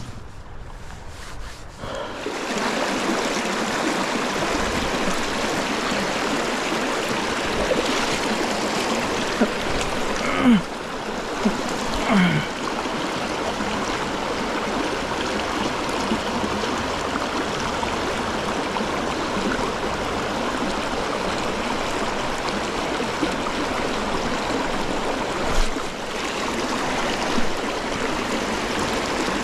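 Mountain trout stream rushing steadily over rocks, becoming louder about two seconds in. Two brief short sounds come partway through.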